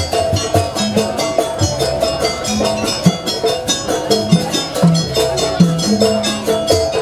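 Jaranan gamelan music: drums and gong-like tuned notes over a fast, even percussion beat of about seven strikes a second.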